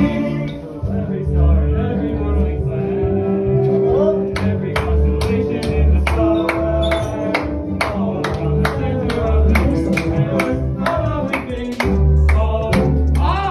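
Background music: a song with singing over steady bass notes, with a regular percussive beat coming in about four seconds in.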